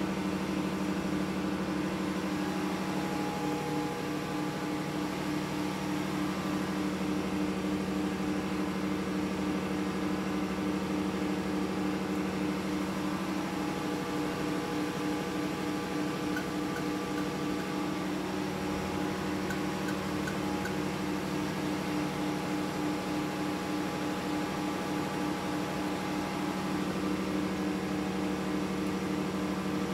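Steady drone of a ship's engine-room machinery: a low, even hum with an evenly pulsing tone above it.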